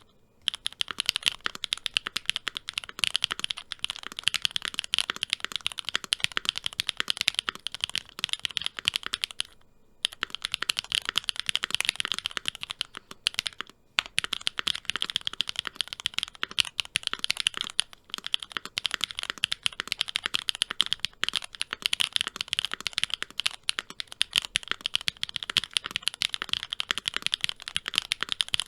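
Typing on a Monsgeek M2 mechanical keyboard with stock Gateron 3.0 switches in an FR4 plate, GMK Amethyst keycaps, TX stabilizers, and plate foam, case foam and tape mod: a fast, continuous run of keystrokes with two short pauses.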